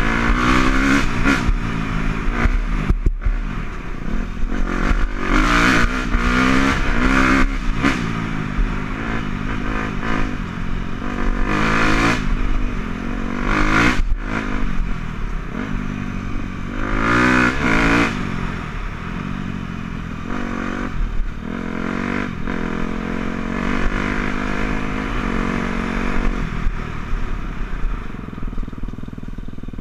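Dirt bike engine being ridden hard, revving up and down over and over, its pitch rising and falling with the throttle. It settles to a quieter, steadier run near the end.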